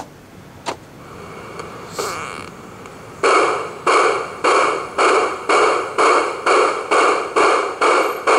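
Two sharp clicks in the first second, then from about three seconds in a ride-on display train's bell rings steadily, about two strikes a second, each ring dying away before the next.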